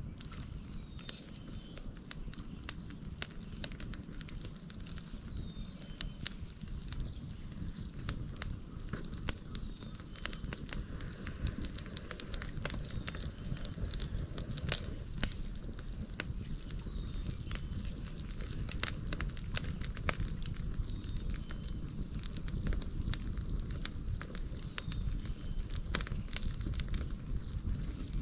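Wood fire crackling, with frequent sharp pops and snaps over a low steady rush.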